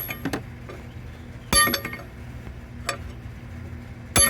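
Sharp hammer strikes on steel with a bright ringing tone, twice (about a second and a half in and near the end), with lighter metal clinks between. They come from working a stripped Allen-head bolt out of a Cummins CP3 pump's fuel regulator.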